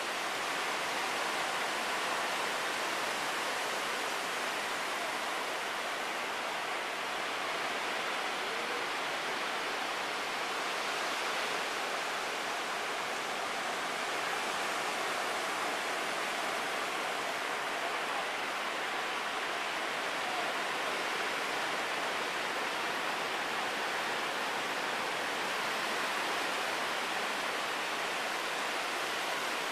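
Ocean surf: a steady, unbroken wash of breaking waves.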